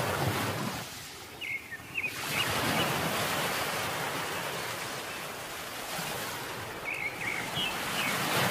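Surf washing ashore in slow swells, with short bird calls twice, once about a second in and again near the end.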